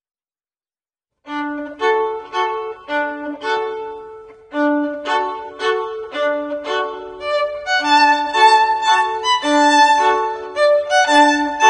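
Instrumental background music, starting suddenly about a second in after dead silence: a repeating pattern of short pitched notes over a low figure, with longer held notes joining partway through.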